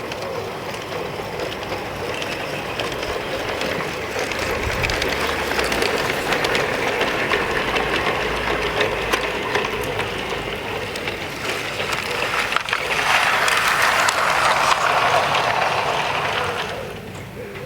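G gauge model train running along garden track, its wheels clicking over the rail joints. It grows louder from about thirteen seconds in, then drops away sharply near the end.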